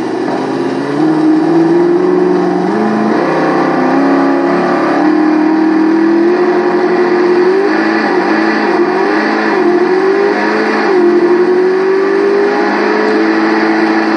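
Synthetic engine sound from an ESS-ONE+ sound module played through its speaker, imitating a revving motor: the pitch steps up over the first few seconds, then wavers up and down and holds high near the end.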